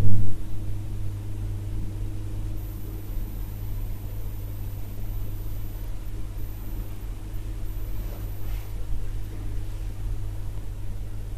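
A steady low hum with a few constant higher tones above it and a light hiss, opening with a brief low thump.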